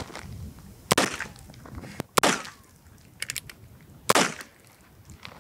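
A Heritage single-action rimfire revolver firing .22 Long Rifle rounds: three sharp gunshot cracks about one to two seconds apart, the last with a short ringing tail. A few light clicks come between the second and third shots.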